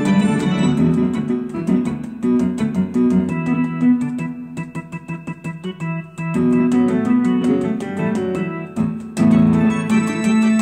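Electronic keyboard played with both hands on a harmony array layout fitted over its keys: quick runs of short notes over held chords and a steady low note, with a short dip about six seconds in and a brief break near nine seconds.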